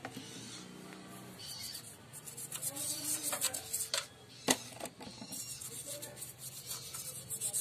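A stiff brush scrubbing the metal block of a small air-cooled engine, wet with cleaning liquid, in short irregular strokes, with one sharp knock about four and a half seconds in.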